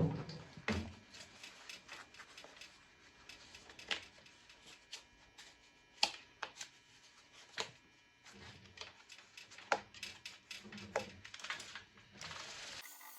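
Irregular clicks, taps and rubbing from hands working candle wax over a cast-iron table saw top, with a few duller knocks. Near the end a steady hiss comes in abruptly.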